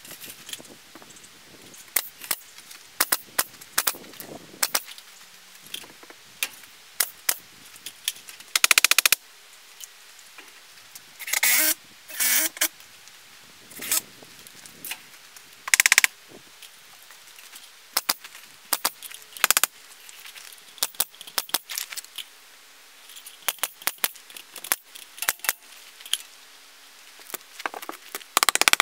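Pneumatic nail gun firing into a timber wall frame: single sharp shots scattered throughout, several with a short hiss of air, and a rapid run of shots about nine seconds in. Lighter clicks and knocks come between the shots.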